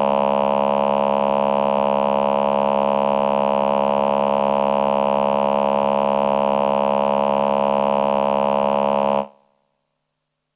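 Roland VP-330 Vocoder Plus synthesizer playing its male Human Voice choir patch: one long, steady held tone that stops about nine seconds in with a quick fade.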